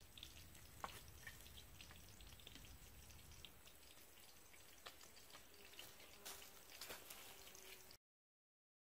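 Near silence: faint outdoor ambience with a few small scattered clicks, cutting to dead silence near the end.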